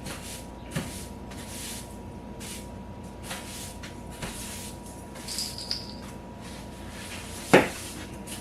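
Quiet room noise with a few faint clicks, then one loud sharp knock near the end.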